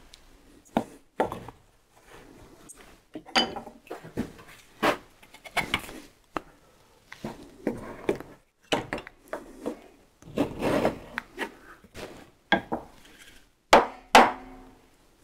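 Wooden leg parts of a furniture piece being handled and set in clamps after gluing: irregular knocks and clicks of wood and clamp parts, with a longer rubbing scrape about ten seconds in and two sharp knocks near the end.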